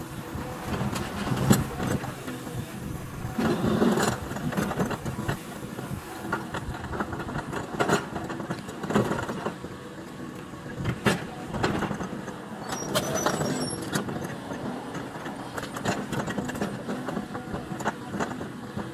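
Caterpillar excavator running while its bucket works through demolition debris, with irregular crashes and clatter of broken metal and timber over the steady engine.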